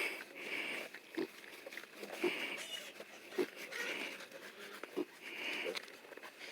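Piglets grunting, short low grunts about once a second with breathy snuffling between them.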